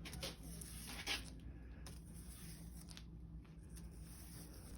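Sandpaper being scrubbed clean by hand: faint, scratchy rubbing, with a louder scrape about a second in, over a steady low hum.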